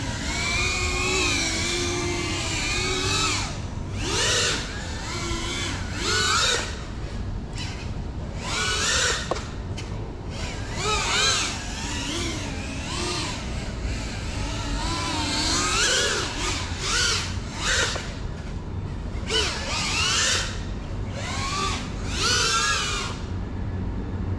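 Motors of a Geprc Cinelog35 3.5-inch ducted FPV cinewhoop whining in flight, the pitch rising and falling with the throttle, and swelling and dropping every few seconds, over a steady low rumble.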